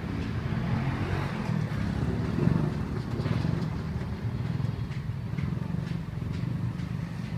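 Steady low engine rumble, with faint clicks over it.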